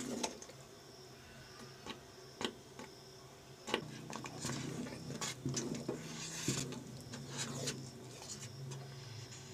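Wooden spoon stirring thick, pasty haleem in a metal pot: irregular knocks and scrapes of the spoon against the pot with soft wet squelches of the paste. A low steady hum comes in about four seconds in.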